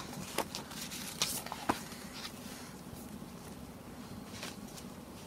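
Pages of a thick cardboard picture book being turned and handled: a few light taps and rustles, most in the first two seconds, then one more near the end, over a faint steady hum.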